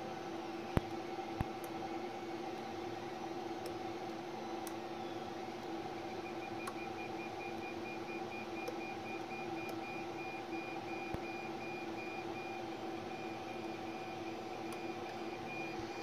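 Steady electrical hum of bench equipment, with two sharp clicks near the start and another about eleven seconds in. From about six seconds in, a high electronic beep repeats rapidly and evenly to the end.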